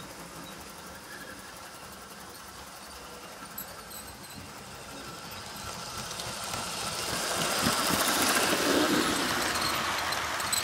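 Model railway train, a steam locomotive hauling coaches, running along the track. Its rolling noise grows louder from about halfway through as the train comes past close by.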